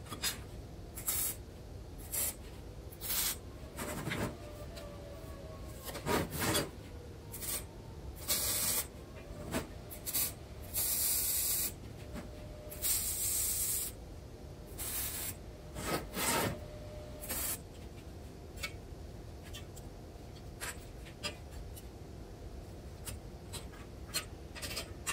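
Welding on a square steel-tube frame: several short tack welds, each about a second of noisy hiss, among shorter bursts of gloves and steel pieces being handled on the steel table.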